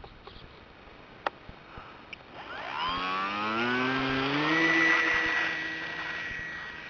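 Model airplane's motor and propeller spinning up: a whine that rises steadily in pitch and grows louder, then holds at a steady high pitch and slowly fades as the plane takes off and draws away. A sharp click about a second in.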